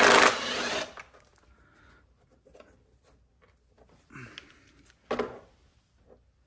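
Hand work on a Kohler Command twin engine being taken apart: a loud rushing noise lasting under a second at the start, then scattered light clicks and a couple of short knocks as parts and tools are handled.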